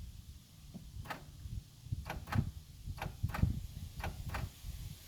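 Headlight stalk being flicked between low and high beam, making several sharp plastic clicks, mostly in quick pairs, over a low rumble.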